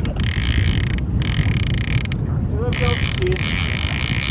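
WFT GC King baitcasting reel cranked under heavy load with a big halibut on the line, its gears rattling steadily, over wind and boat rumble.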